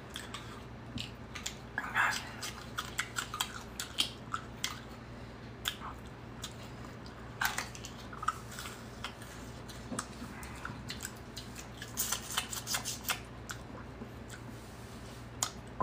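Peeling and eating raw hollow green plant stalks: scattered crisp snaps and tearing as the skin is stripped off by hand, mixed with crunchy chewing.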